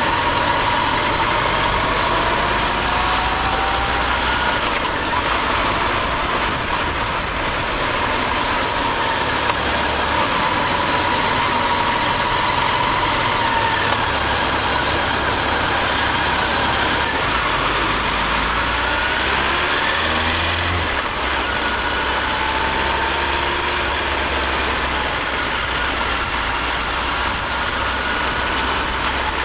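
Honda CB1300 Super Bol d'Or's inline-four engine running at low city speed, its note rising and falling gently as the bike speeds up and slows, under steady wind and road noise.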